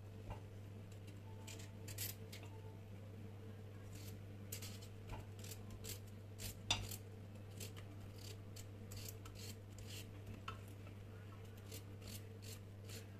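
Kitchen knife cutting a raw potato in the hand, chunks dropping into a pan of chopped vegetables: an irregular string of short crisp clicks and snaps over a faint steady hum.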